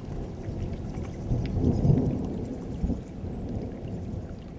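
Rain falling, with a rolling rumble of thunder that builds to its loudest about two seconds in and dies away soon after three seconds.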